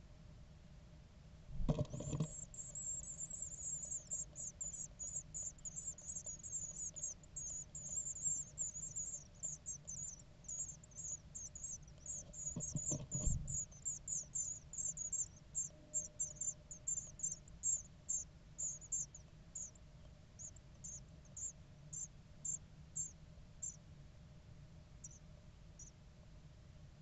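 Great tit nestlings begging: a rapid stream of thin, very high-pitched calls that starts with a thump about two seconds in, swells again after a second thump about halfway through, and thins to scattered single calls near the end.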